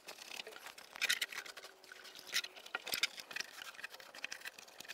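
Cloth towel rubbing and wiping across a car's bare painted-steel floor pan, mopping up standing water: a run of soft, irregular scuffing strokes.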